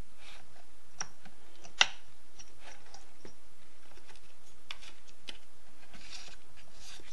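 Scattered small clicks and taps of hands fitting a paper card gauge into the gap between a chainsaw's flywheel and ignition coil, with one sharper click a little under two seconds in and some paper rustling near the end.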